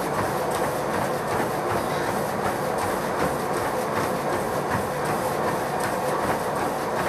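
Running footfalls pounding on a treadmill belt in a steady, even rhythm, over the treadmill's motor and belt running.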